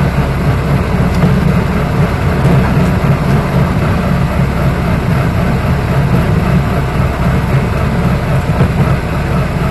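Railroad track speeder (motorcar) travelling along the rails, heard from inside its cab: a steady, loud low drone of its engine and running gear.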